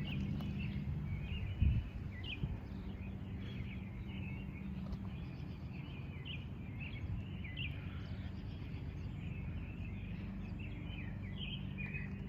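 Small birds chirping over and over over a steady low hum, with one brief thump about two seconds in.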